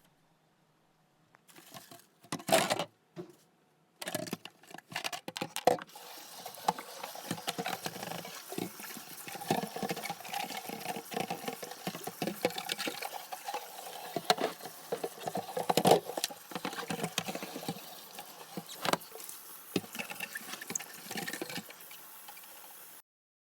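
Water running and splashing, with small knocks and clatters of items being handled in it; a few louder knocks come first, and it cuts off suddenly near the end.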